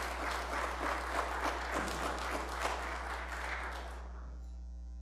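Congregation applauding in welcome. The clapping dies away about four seconds in, leaving a low, steady electrical hum.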